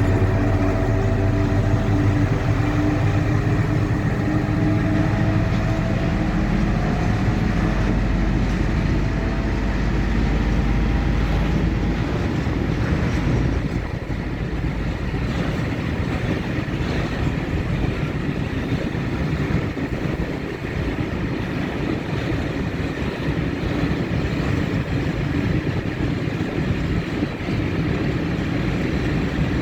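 Soviet-built M62 diesel-electric locomotive, its two-stroke V12 diesel working under load as it starts a freight train. About twelve seconds in, the engine note fades and a steady rolling rumble of freight wagons on the rails takes over.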